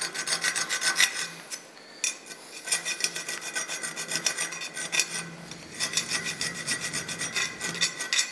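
Thin round hand file rasping back and forth in a hole of a welded metal motorcycle saddlebag mount held in a bench vise. It runs in quick scraping strokes, easing off briefly about two seconds in and again past the five-second mark.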